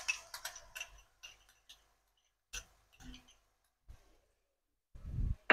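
Tomato ketchup being squeezed from its bottle, spluttering as a quick run of small clicks and splats in the first second, then a few scattered single clicks. A short, soft low thump comes near the end.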